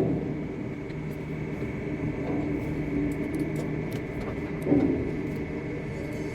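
Tower crane machinery running with a steady low hum and a constant high whine, with one short, louder bump about three-quarters of the way through.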